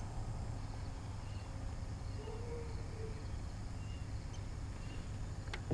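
Calm outdoor ambience on open water: a steady low rumble with faint, short, high chirps scattered through it. A couple of sharp clicks come near the end.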